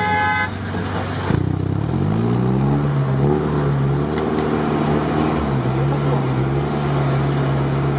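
Off-road vehicle engine revving up about a second in and then holding a steady pitch under load while wading through deep water.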